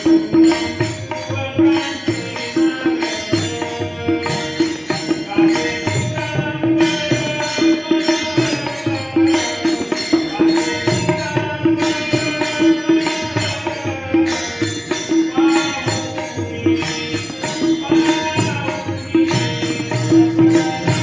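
Marathi gavlan devotional music: a melody over a steady drone and a regular drum beat.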